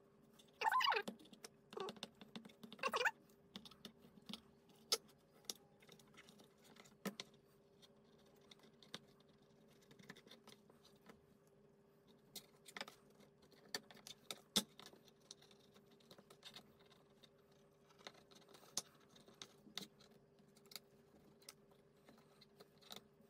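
A knife cutting the bone out of a thick beef steak on a plastic cutting board: faint, scattered light clicks and scrapes, over a steady faint hum.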